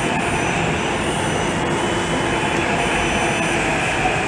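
Hyderabad Metro train approaching the platform: a steady, loud rumble with a few faint high whines.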